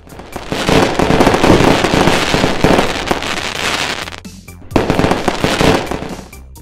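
Fireworks sound effect: a long run of crackling bursts, then a second shorter one near the end, over background music.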